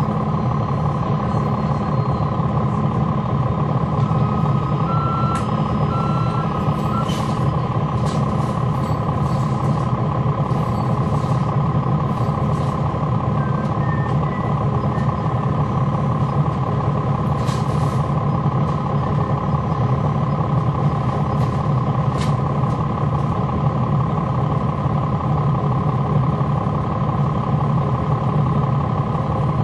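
Cummins ISL9 diesel engine of a 2011 NABI 416.15 (40-SFW) transit bus running steadily, heard from on board with its engine cooling fans on. A steady high whine sits over the low engine drone, and a few short clicks and rattles come through.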